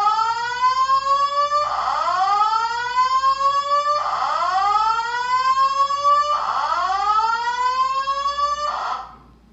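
Building fire alarm sounding the whoop evacuation tone: a rising sweep about two seconds long, repeated four times, then a short fifth sweep that cuts off about nine seconds in. It is sounding as part of a fire alarm test.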